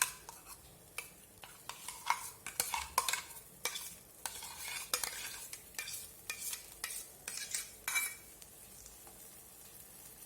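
A spoon scraping and clinking against a pan as freshly ground masala paste is stirred in hot oil, with a light sizzle; the stirring stops about eight seconds in.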